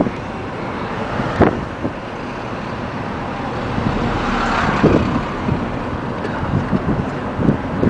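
Wind rushing and buffeting the microphone in a steady rumble with irregular thumps, swelling about halfway through.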